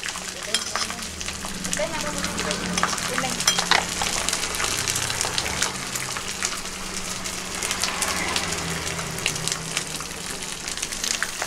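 Food frying in hot oil: a steady sizzle with dense crackling pops, over a low steady hum.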